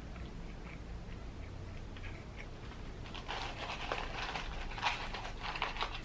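Paper fries carton crinkling and rustling as a hand digs fries out of it, starting about three seconds in and getting louder.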